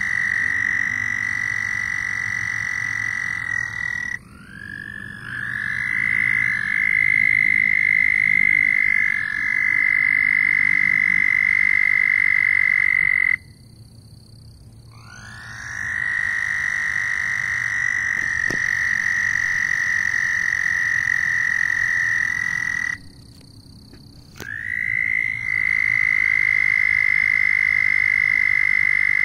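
Frogs calling: loud, high, steady trills, each held unbroken for several seconds. The trilling stops for a second or two three times and starts up again, sliding up slightly in pitch each time it resumes.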